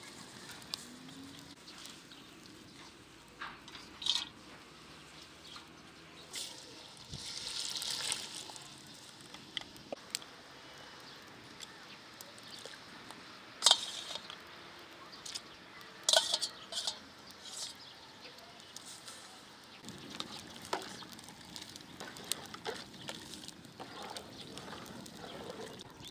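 Wood fire crackling in a metal stove under an aluminium cooking pot, with scattered sharp clicks and knocks; the loudest knock comes about fourteen seconds in.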